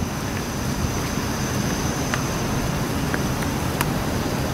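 Norfolk Southern GE Dash 9-44CW diesel locomotive rumbling steadily as it rolls slowly along yard track, with wind on the microphone and a couple of faint clicks.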